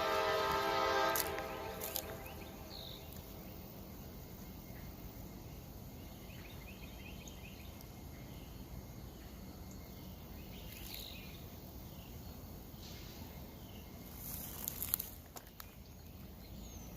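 Locomotive K5 multi-chime air horn sounding a held chord that cuts off about a second in. After it comes quiet outdoor background with faint chirps and a short cluster of sharp clicks near the end.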